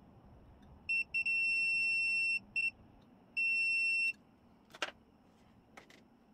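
A digital multimeter's continuity beeper sounds as its probes touch points on a smart key's circuit board: a high, steady beep in several stretches, some short and two about a second long, each marking a connection, here while tracing the board's ground. Near the end come two light clicks.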